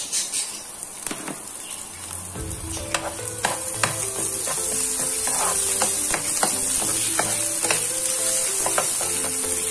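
Chopped green beans and onion sizzling in hot oil in a non-stick frying pan, stirred with a metal spatula that scrapes and clicks against the pan. Soft background music with held notes comes in about two and a half seconds in.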